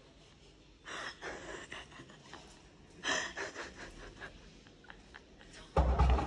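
Breathy laughter and gasps from a few women, in two short bursts, then a loud thump near the end.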